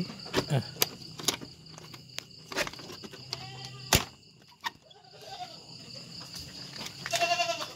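Metal barrel bolt on a wooden pen door being worked by hand: scattered clicks and rattles, with one sharp metallic clack about four seconds in. Crickets chirp steadily in the background, and a goat gives a short high bleat near the end.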